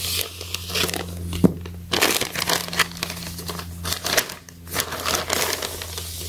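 White plastic poly mailer crinkling and rustling in irregular bursts as it is cut open with scissors and pulled apart by hand, over a low steady hum.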